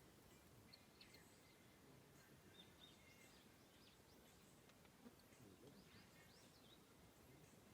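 Near silence with faint, short, high bird chirps that come in small clusters about a second in, around three seconds, and again between five and six and a half seconds.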